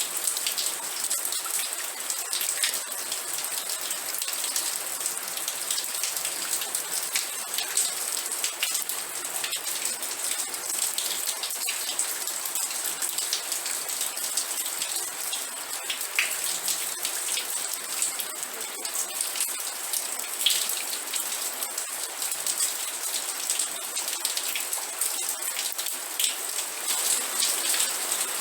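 Steady rain falling, a continuous hiss with many fine drop taps landing on a surface.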